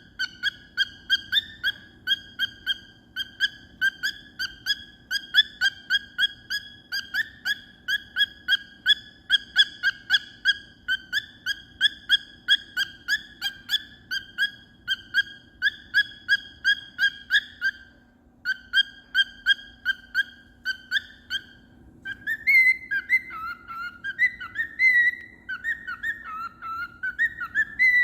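Cockatiel tooting: one short whistled note repeated over and over in quick steady succession, broken by two brief pauses. Near the end it changes to a whistled run of notes sliding up and down in pitch.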